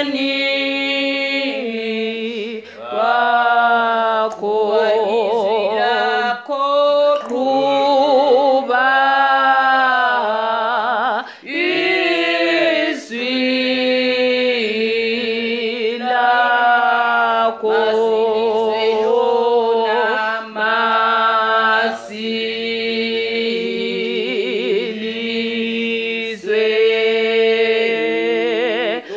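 Unaccompanied hymn singing in Zulu, several voices with vibrato, in phrases of a few seconds broken by short breaths.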